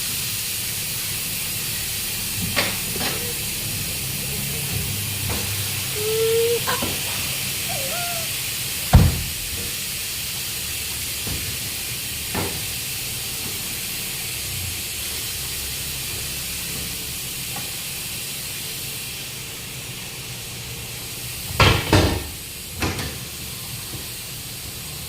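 Steady hiss with scattered sharp knocks and clinks from tyre-changing work, with a few brief squeaks early on and a cluster of loud knocks near the end.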